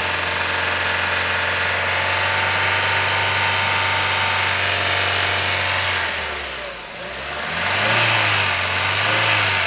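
Ford Fiesta engine running hot at raised revs, with a light tick ('tec') that the owner says appears only once the engine is warm and seems to come from the top of the engine. The revs drop about six and a half seconds in and rise again about a second later.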